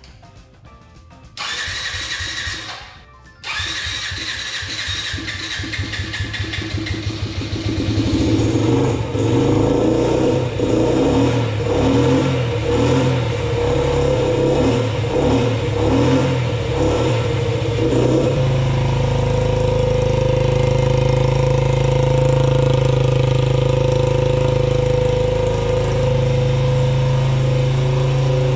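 Yamaha Raptor 50 quad's small four-stroke single being electric-started after ten years sitting: the starter motor whines in two bursts of cranking. The engine then catches and runs unevenly for about ten seconds before settling into a steady run.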